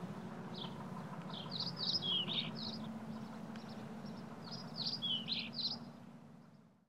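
Birds chirping: a short high chirp repeated about every half second, then two bursts of quicker song, over a steady low hum. The sound fades out at the end.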